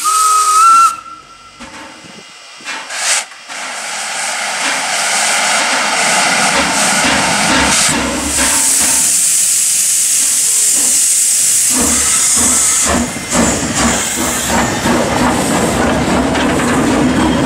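VR Class Tk3 steam locomotive: its whistle ends about a second in, then it moves off with steam hissing loudly from its open cylinder drain cocks. A low rumble of the running gear and wheels joins in and carries on as the locomotive rolls past.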